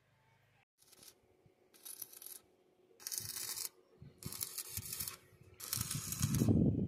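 Electric arc welding on a steel frame, crackling in four short bursts of half a second to a second each. A low rumble grows louder near the end.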